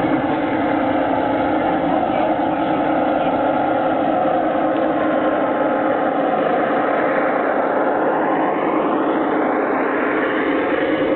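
G-scale model passenger train running past on garden-railroad track: a steady mechanical hum of motors and wheels on the rails, its tone shifting upward near the end as it goes by.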